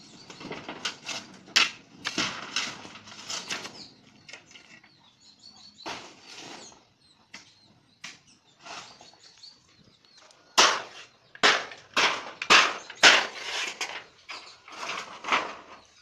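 Cashew seeds roasting in a pan over an open wood fire: irregular bursts of crackling, popping and flaring as the oily shells burst and catch fire. The bursts come in a fast run from about ten seconds in.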